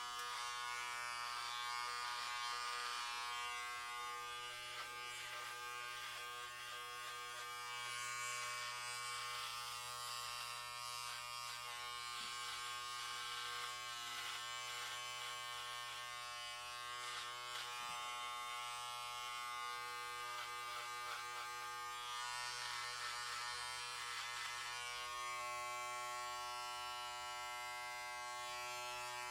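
Electric hair clippers running with a steady buzz, their tone shifting slightly now and then as the blades work.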